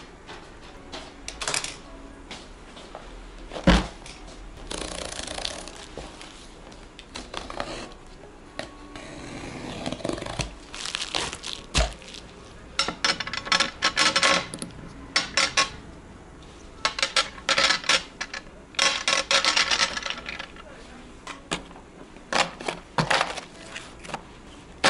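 Small contact lens boxes and glass lens vials being handled and set down on a glass counter: an irregular string of clicks, taps and clinks, some of the clinks ringing briefly, with short stretches of rustling.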